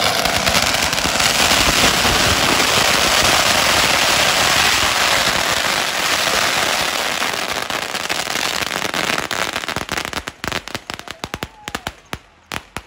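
Strings of firecrackers (bakuchiku) going off on a road in a dense, continuous barrage of bangs, thinning near the end into scattered separate bangs as they burn out.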